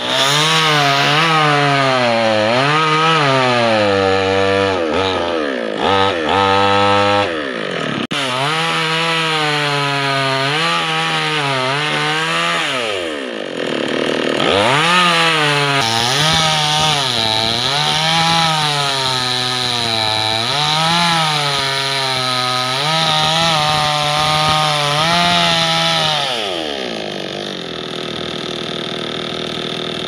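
Two-stroke petrol chainsaw cutting into the base of a mango tree trunk, its engine note rising and falling every second or two as the chain bites into the wood and frees up. Near the end the engine drops to a lower, steadier note.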